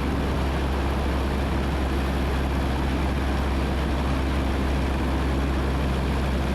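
Cessna 172N's four-cylinder Lycoming engine and propeller droning steadily in cruise, heard from inside the cabin, with a deep, even hum and no change in power.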